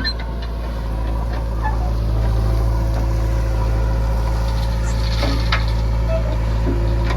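Heavy diesel engine running steadily at low revs, with a few light knocks and clicks.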